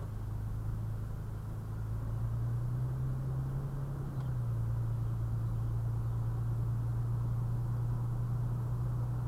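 Toyota FJ Cruiser's 4.0-litre V6 engine heard from inside the cabin as the vehicle pulls away at low speed. Its pitch rises for a couple of seconds, drops at an upshift about four seconds in, then holds steady.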